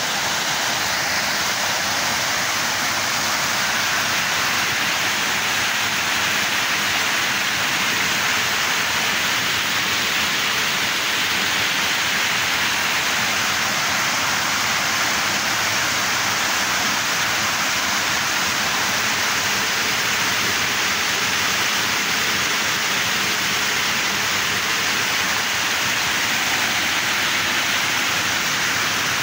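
Small waterfall pouring steadily over rocks and a low concrete weir: a constant splashing rush of water, even and unbroken throughout.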